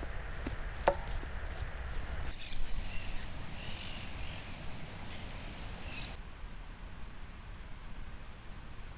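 Trail-camera outdoor sound that changes with each clip. First comes a sharp snap in dry brush about a second in, then a stretch with a few short high sounds, then a quieter steady hiss.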